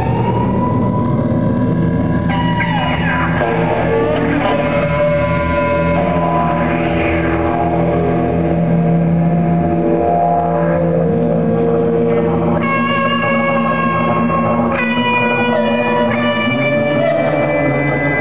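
Live improvised music: amplified voices and electronics holding drawn-out, sometimes sliding tones over a hollow-body electric guitar and a steady low drone.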